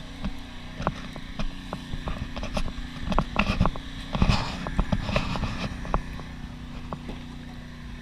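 Footsteps and scattered knocks and rustles from handling gear while walking, over a steady low hum.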